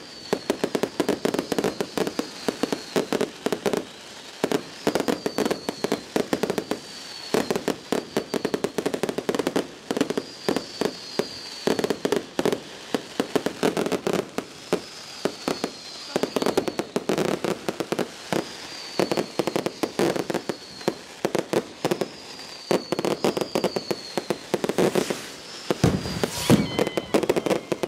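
Fireworks going off in quick, continuous succession: a dense run of bangs and crackling, with short falling whistle tones recurring every second or two. The loudest bangs come near the end.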